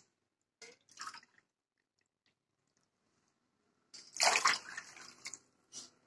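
Water poured from a glass bowl into a pan of sugar, splashing in short gushes. The longest and loudest pour comes about four seconds in, with brief ones about a second in and near the end.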